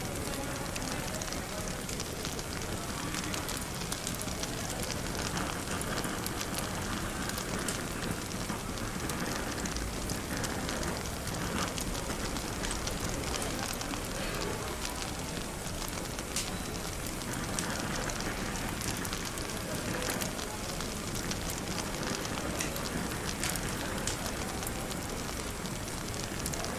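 Fireplace crackling: a steady hiss dotted with many small, irregular pops and snaps, over a faint murmur of cafe chatter.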